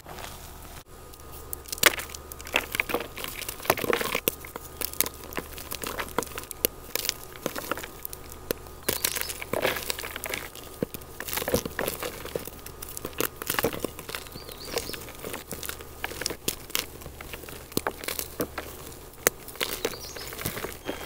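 Hands squeezing and crumbling blocks of gym chalk into crumbs and powder: a dense, irregular run of crisp crunches and crackles.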